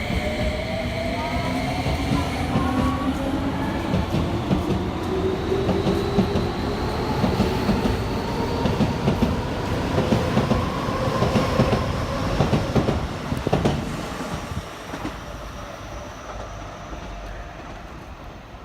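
Keio 5000 series train pulling out of the station: the inverter motors whine with several rising tones as it speeds up, over wheels clattering on the rail joints. About 13 s in, the sound begins to fade as the train draws away.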